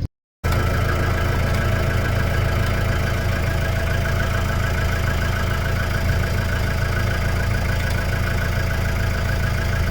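Farm tractor's diesel engine running at a steady speed, a constant low drone with a steady whine above it, starting just after a split second of silence.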